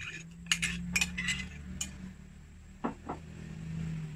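A spoon clinking and tapping against a cup and mixing bowl while scraping out the last of the evaporated milk: several quick clinks in the first two seconds, then two duller knocks near three seconds in. A low steady hum runs underneath.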